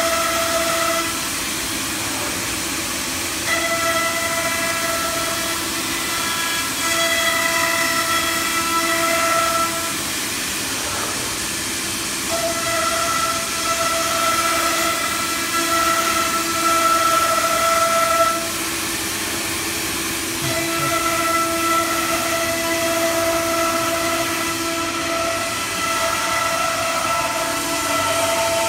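A CNC router's 9 kW spindle running as it machines a panel: a steady high whine over a constant hiss. The whine runs in stretches of several seconds and breaks off briefly three times.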